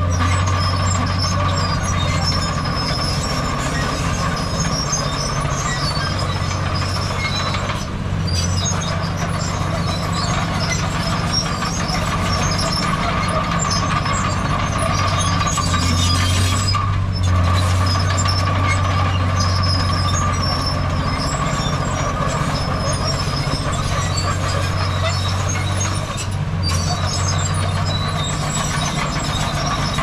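Diesel engines of heavy earthmoving machinery running steadily: a loud, constant low drone with a steady whine above it. There are three short dips, about nine seconds apart.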